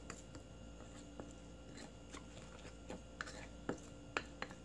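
Wooden spoon stirring a thick soy-and-sesame-oil seasoning sauce with chopped green onion in a stoneware bowl: faint wet squishing with irregular light taps of the spoon against the bowl, a few sharper ones past the middle.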